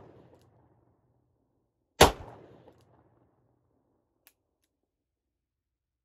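One gunshot from a Rock Island Armory AL 9.0 9mm revolver, fired single action, about two seconds in. Its report echoes away over about a second, and a faint click follows a couple of seconds later.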